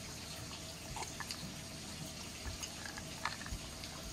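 Quiet dinner-table sounds: a steady faint hiss with a few light clicks and taps of plates and cutlery.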